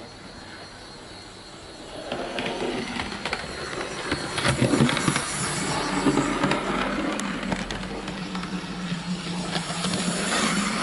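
Hornby OO gauge SE&CR Wainwright H Class model tank locomotive running on the layout while it is run in: a steady motor hum with wheels clicking over rail joints. It grows louder about two seconds in as the engine draws near.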